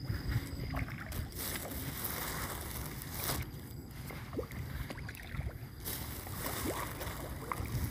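Wind buffeting a phone microphone outdoors, an uneven low rumble, with a few faint scattered clicks and rustles.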